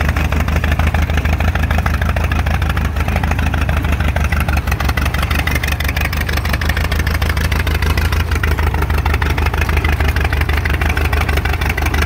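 1920 Cletrac Model W 12-20 crawler tractor's engine running steadily under way, with rapid, even exhaust pulses.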